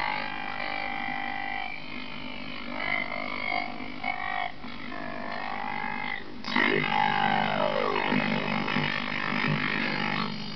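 Buzzy, warbling electronic tones from a frozen computer's speakers, several pitches held at once and wobbling up and down. About six and a half seconds in, the sound jumps louder and a pitch glides steadily downward. The owner blames a faulty video card locking up the machine.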